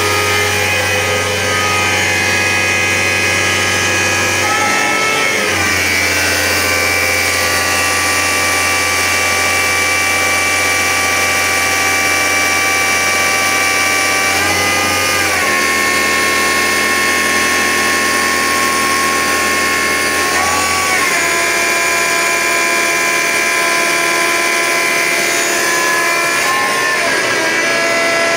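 Hardinge CNC lathe running under power with a steady motor whine made of several tones, which glides to a new pitch four times as the speed changes.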